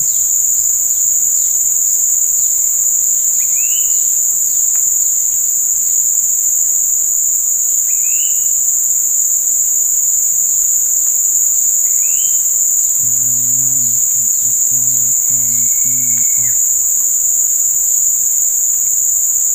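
A dense insect chorus of the tropical riverside forest, a steady high shrill drone with no let-up. Three short rising calls come through it about four seconds apart.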